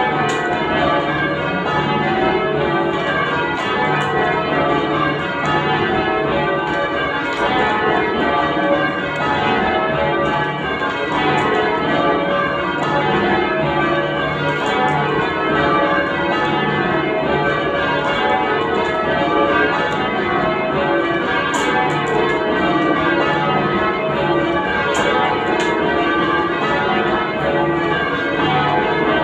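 Change ringing on a ring of ten church bells: a touch in progress, the bells striking one after another in a steady, unbroken stream of rows.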